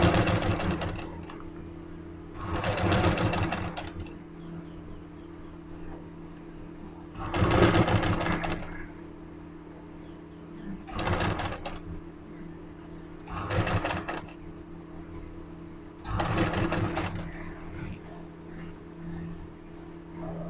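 Domestic straight-stitch sewing machine, driven by an add-on electric motor, stitching in about six short runs of one to two seconds each with pauses between. A steady low hum continues under the runs.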